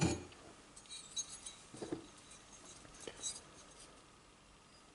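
A stripped 1911 pistol frame being picked up and handled on a wooden bench: a knock at the start, then a few faint metallic clinks.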